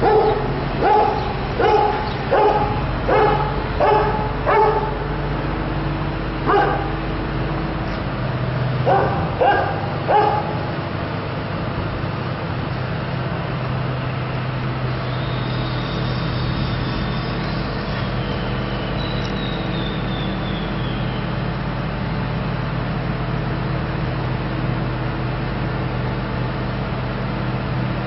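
A dog barking in a regular series, roughly a bark every 0.7 s, then a few scattered barks, stopping about ten seconds in. Under it runs a steady low engine hum.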